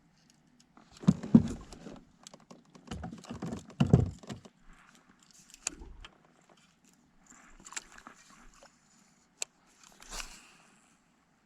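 Irregular knocks, clatter and rattles in clusters, loudest about a second in and about four seconds in, with scattered sharp ticks later, over a faint steady low hum.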